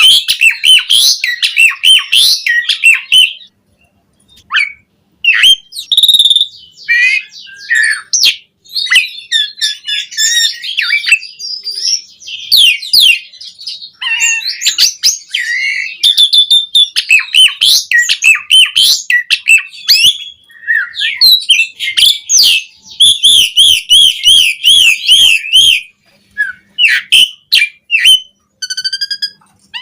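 Asian pied starling (jalak suren) singing hard: a long, varied song of loud whistles, chatters and clicks, with a fast wavering trill about two-thirds of the way through, its song full of mimicked phrases (isian).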